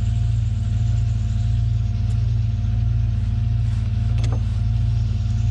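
An engine running steadily: a low, even drone with a faint steady whine above it. A brief click comes about four seconds in.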